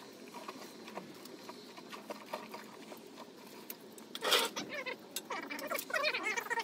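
Wet feathers being pulled from scalded chickens, a run of small rips and ticks, with a short splash about four seconds in as a chicken is swished in a bucket of hot water. Near the end a high, warbling sound comes in.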